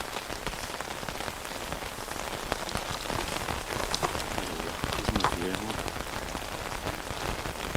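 Rain falling on a tent, a steady hiss dotted with the ticks of single drops, with a faint voice briefly about five seconds in.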